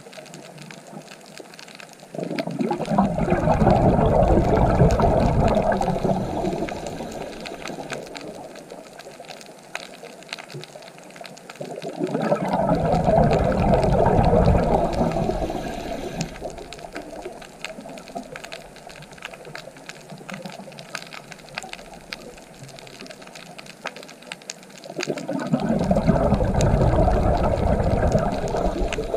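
Scuba diver's exhaled bubbles rushing from the regulator, heard underwater: three long bursts about ten seconds apart, following the diver's breathing. Faint scattered crackling fills the gaps between them.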